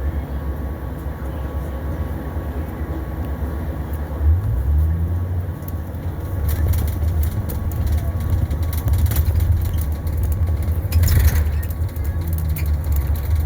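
2021 Blue Bird Vision school bus running with a steady low rumble. Its engine note rises about four seconds in, with rattles throughout and a short burst of noise about eleven seconds in.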